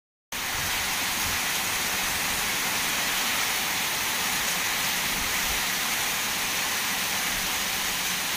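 Heavy monsoon-style downpour of rain falling on a waterlogged ploughed field, a steady, dense hiss with no letup.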